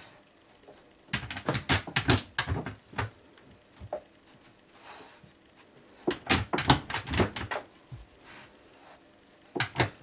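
A Briard rummaging through things on a low wooden shoe shelf: three bursts of quick knocks and rattles as objects are pushed and knocked about, with quieter moments between.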